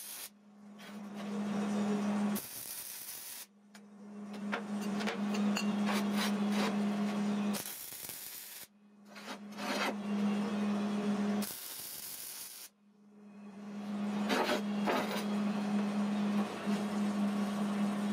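MIG welder's arc running in several stretches of a few seconds each, a steady buzz and hiss with crackling spatter pops, as a square steel tube is tacked to a steel base plate. It breaks off briefly three times.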